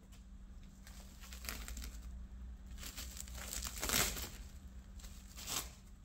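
Plastic cling film crinkling as it is peeled off a glass bowl, in irregular rustles that are loudest about four seconds in, with a last short crinkle near the end.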